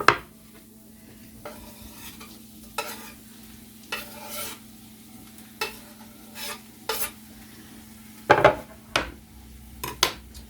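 A utensil scraping and clinking in a skillet in about a dozen separate strokes, the loudest about eight seconds in, over a faint sizzle of onions and garlic frying on low heat.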